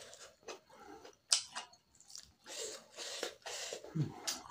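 Close-miked mouth sounds of a person eating pork curry with rice by hand: wet chewing in a string of short bursts, with one sharp click a little over a second in and a short low hum near the end.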